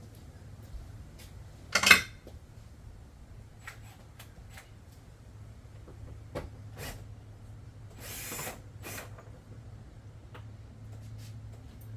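Hand tools and plastic trim parts being handled: scattered light clicks and knocks, with a louder clatter about two seconds in and a short rustle around eight seconds.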